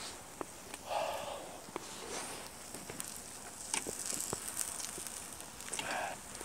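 Beef sizzling and crackling softly on a hot stone slab over a portable gas burner, with a few sharp ticks of wooden chopsticks and two short breathy mouth sounds from eating, about a second in and near the end.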